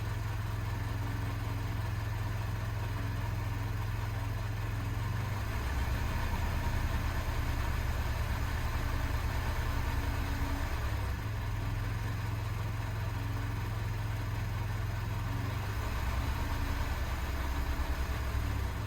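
Honda N-WGN Custom turbo's 660 cc three-cylinder running steadily at idle, with the transmission's light, repeating 'sa-sa-sa' rubbing noise that the owner finds unusually loud, though the dealer says it is normal.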